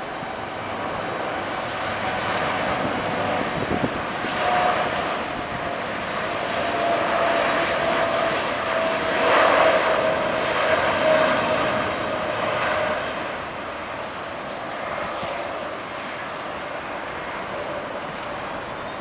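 Boeing 747-8F freighter's four GEnx-2B turbofans at takeoff power, growing louder to a peak about halfway through. A steady fan tone slides slightly lower as the jet goes past, then eases to a steady rumble.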